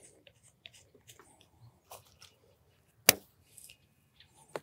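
Black half-inch poly drip tubing being pushed onto the barb of a plastic Perma-Loc tee fitting: faint plastic creaks and rustles, with a sharp click about three seconds in and another near the end.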